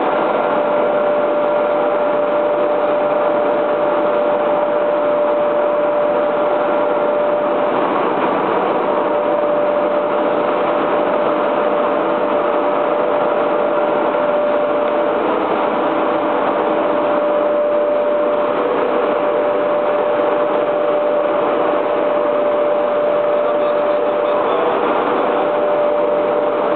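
EPS (styrofoam) block moulding machine running: a steady mechanical noise with one constant whining tone throughout.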